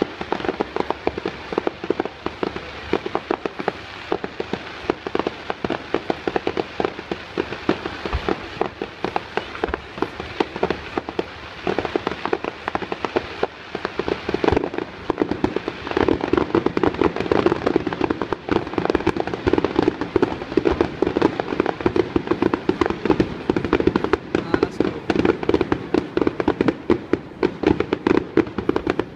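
Fireworks display: a rapid, continuous barrage of cracks and pops from bursting fireworks, getting louder and denser about halfway through.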